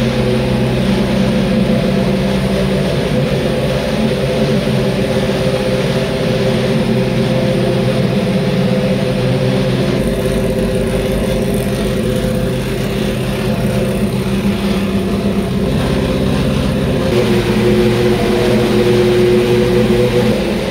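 Formula 3000 race car's V8 engine running at a steady idle, with small shifts in pitch.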